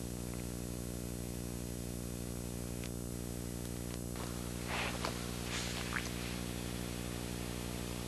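Steady low electrical hum with a buzz, and a few faint short noises about five seconds in.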